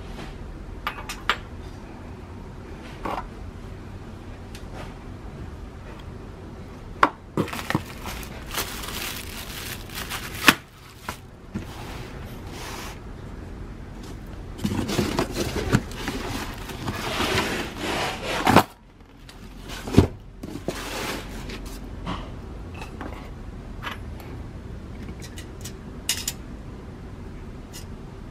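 Handling noise from a stainless steel table fork on a table: scattered clicks and taps as it is set down and picked up, with two stretches of rubbing and scraping, the longer one near the middle.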